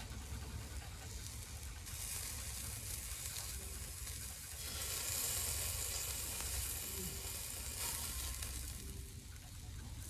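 Meat sizzling on a small tabletop grill, a steady hiss that grows louder about two seconds in, is strongest around the middle and eases slightly near the end.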